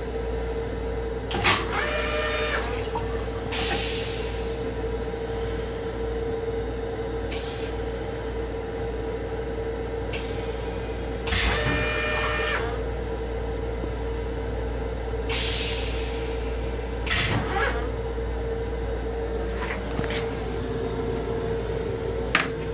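Inside an M7 commuter railcar's restroom, a steady low rumble and a constant hum from the car, broken by a few sharp clicks and rattles. Twice a brief high tone sounds for about a second.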